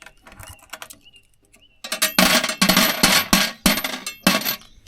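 Coins clinking and rattling as they are put into a car-park payment box, in a run of loud jangling bursts starting about two seconds in and lasting about two and a half seconds.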